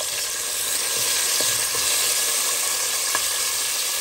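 Chopped onion, scallion, sweet pepper and tomato sizzling steadily in hot oil in a cooking pot, with a couple of light clicks from stirring.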